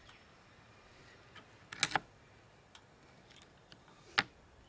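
Lever-and-blade clam shucker working on a hard-shell cherrystone clam: sharp clicks as the blade is levered against the shell in its groove, the two loudest a little over two seconds apart, with a few faint ticks between.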